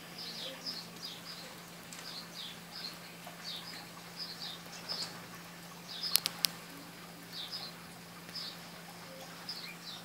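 House sparrows chirping: short, repeated chirp notes, about two a second. A few sharp clicks a little after six seconds in stand out as the loudest sounds, over a steady low hum.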